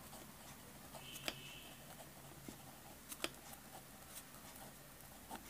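Pen writing on a notebook page: faint scratching with a few sharp taps, the loudest a quick double tap a little past three seconds in.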